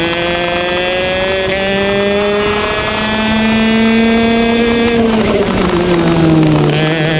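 Racing kart engine heard from onboard, its pitch climbing slowly as the kart accelerates along a straight. About five seconds in it drops off as the kart slows into a corner, then begins to rise again near the end.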